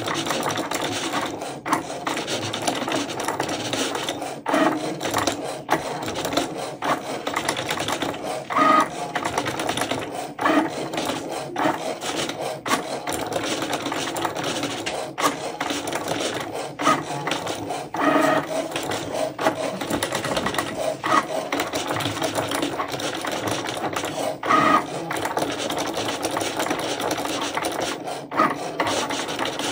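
Cricut Maker 3 cutting machine cutting white Smart Vinyl without a mat: its motors whir steadily as the blade carriage shuttles along the rail and the vinyl feeds back and forth. Frequent short, louder whirs mark the quick moves.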